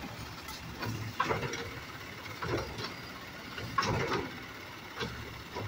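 Automated side-loader garbage truck's diesel engine idling steadily, with repeated knocks and clatters from the lifting arm and the upended cart held over the hopper as it is emptied.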